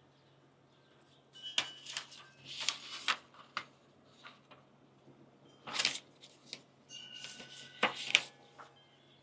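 Scattered clicks, taps and rustles of handling, loudest near six and eight seconds in, over a faint steady hum from the diesel heater's fan running after start-up.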